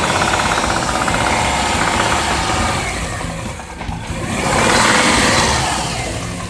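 Subaru flat-four engine running with a fast, rhythmic knock, revved briefly about four and a half seconds in. The knock, together with suspicious vibration, is what the owner takes as a sign the engine is failing.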